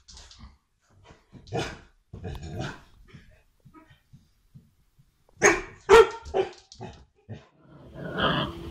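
Yellow Labrador barking warily at a watermelon, in short separate barks: one about a second and a half in, a couple more just after, then a louder quick run of barks around five and a half to six and a half seconds in.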